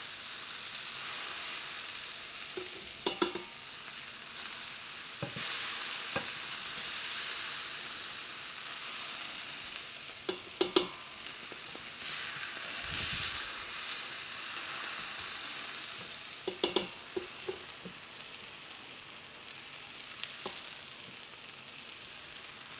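Browned, flour-coated stew meat still sizzling steadily in a hot pan while a spatula stirs and scrapes it. Sharp knocks of the spatula against the pan come in small clusters about three seconds in, near the middle, and about two-thirds through.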